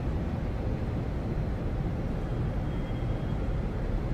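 Steady low rumble and hiss of background room noise, with no distinct events.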